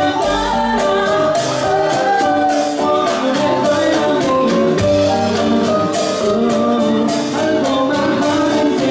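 Live band playing Latin dance music: drum kit, keyboard and percussion, with a woman singing over them.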